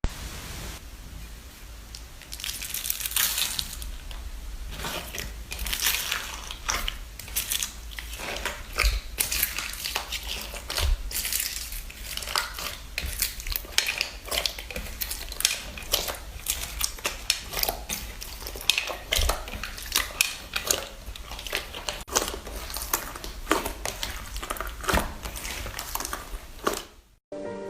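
Slime being pressed and squeezed by hand, making a dense, irregular run of crackles and small pops.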